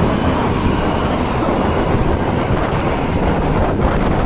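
Loud, steady vehicle noise on the road, buffeted by wind on the microphone.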